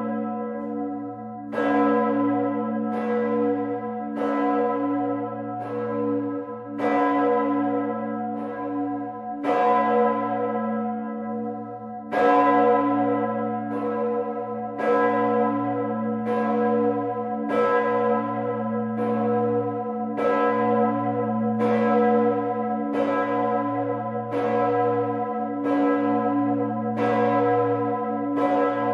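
Gloriosa, the 3,700 kg bronze bell of Bremen Cathedral cast in 1433, swinging and ringing on its own, its clapper striking about once every 1.3 seconds. Each stroke leaves a deep hum ringing on under the next.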